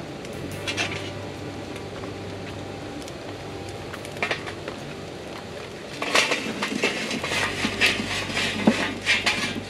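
Lit charcoal briquettes poured from a metal chimney starter into an offset smoker's steel firebox, clattering and rattling from about six seconds in, with a few single clinks before that as the chimney is handled. The lit coals are being dumped onto unlit charcoal to start a minion-method fire.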